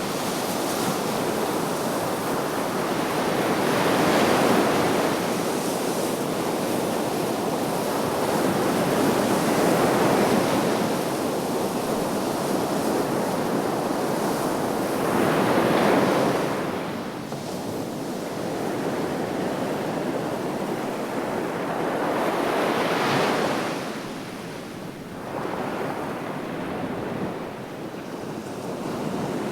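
Sea waves breaking and washing onto the shore, a continuous surf noise that swells into a louder surge about every six or seven seconds.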